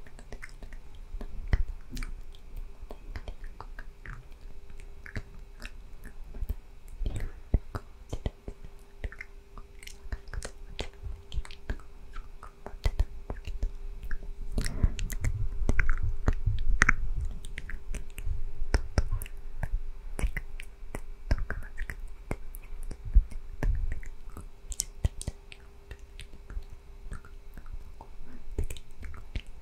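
Unintelligible whispering very close to a microphone, made mostly of wet mouth clicks and smacks with breathy whispered syllables, in a steady irregular stream.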